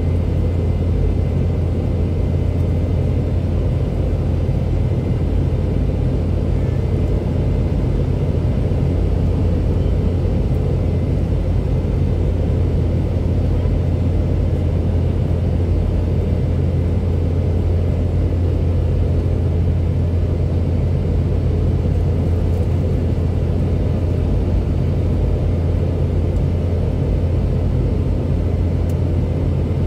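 Cabin noise of a Boeing 717-200 in its climb: a steady low roar of airflow and its tail-mounted Rolls-Royce BR715 turbofans, with a faint high steady tone above it.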